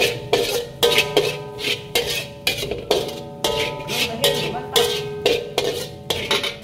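A metal spatula repeatedly strikes and scrapes a large metal wok while stir-frying scrambled egg, about two to three strokes a second. The wok rings briefly after each hit.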